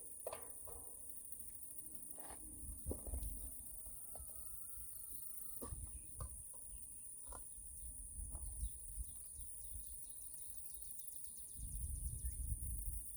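Quiet rural outdoor ambience: a steady high insect drone, with scattered small clicks, knocks and low rumbles of handling.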